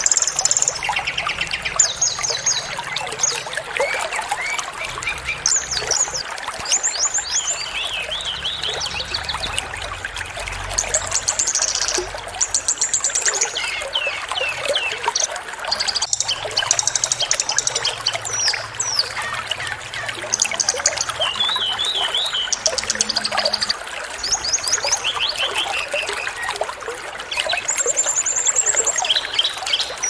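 Small songbirds singing a fast, closely packed string of short high chirps and trills, phrase after phrase with little pause, over a steady sound of running water.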